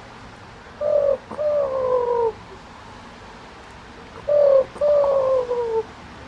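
Pet dove cooing twice: each call is a short note followed by a longer, slowly falling coo.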